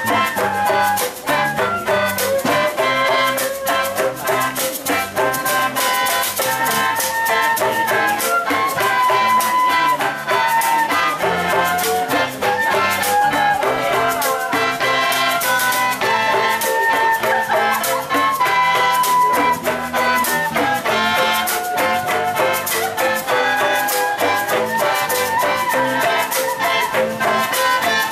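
Ensemble of traditional Sabah bamboo instruments playing a lively tune: a sompoton gourd mouth organ and a side-blown bamboo flute carry the melody over dense, clicking rattle and bamboo percussion.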